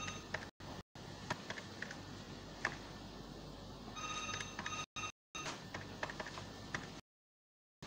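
An electronic ringing tone, like a phone ringtone, sounding at the very start and again for about three seconds from halfway through, over faint hiss and a few light clicks. The audio drops out briefly several times and goes dead near the end.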